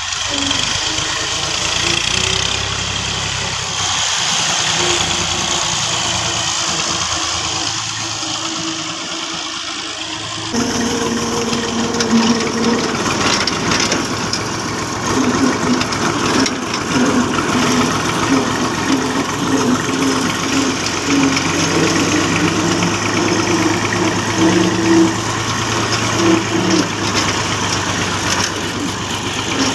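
Diesel farm tractor engine running as the tractor is driven along a dirt track. It is heard from beside the road for the first third, then, after an abrupt change, close up from the driver's seat by the upright exhaust stack, louder and with an even pulsing beat.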